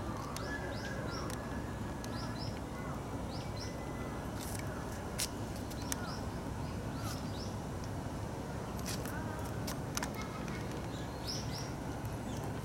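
Small birds chirping in short high notes, often in quick pairs, repeated every second or two over steady low background noise, with a few sharp clicks.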